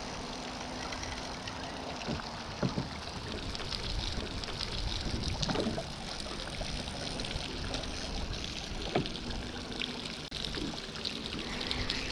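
Water splashing and trickling as a hooked Australian bass is played to the side of the boat and landed, with a few sharp knocks.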